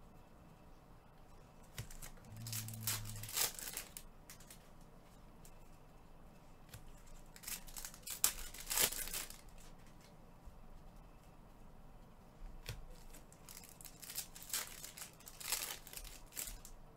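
Trading card packs being torn open: foil wrappers ripped and crinkled in three bouts, about two, eight and fifteen seconds in.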